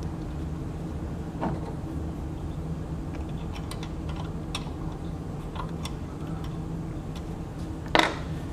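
Scattered light clicks and taps of hands handling the parts of a sewing machine, over a steady low hum, with a sharper click near the end.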